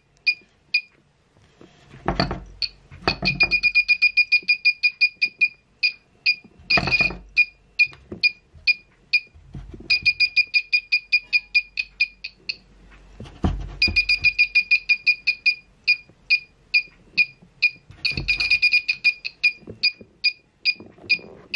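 Small electronic buzzer of a homemade earthquake alarm beeping in rapid, irregular chirps with a few longer steady runs of a second or two, each time the swinging pendulum weight touches its wire contact ring as the wooden frame is shaken. A few knocks of the wooden frame come among the beeps.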